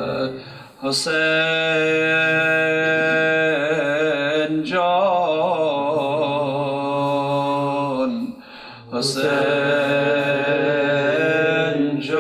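A man's voice chanting an unaccompanied elegy in the Shia mourning style, in long held notes with wavering ornamented runs, breaking off briefly about a second in and again near eight seconds.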